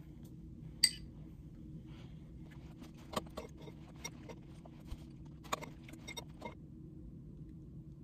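A metal spoon clinking and scraping against glass food containers. One sharp, ringing clink comes about a second in, then a run of lighter clicks and taps from about three seconds to six and a half, over a low steady hum.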